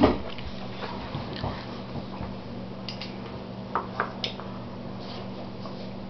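Sounds of eating at a table: a short loud throat sound right at the start, then scattered light clicks of a fork against a plate and chewing, with a few sharper clinks about three to four seconds in, over a steady low hum.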